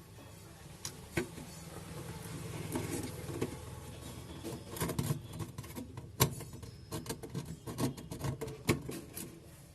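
Irregular light scraping and small sharp clicks of a tool working around the edges of a Mi 6A phone's frame, cleaning it before a new display is fitted, over a low steady hum.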